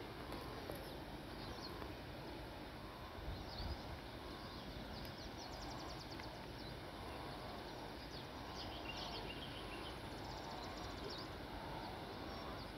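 Outdoor ambience: faint, scattered bird chirps and short trills over a low, steady background rumble, with one brief low thump about three and a half seconds in.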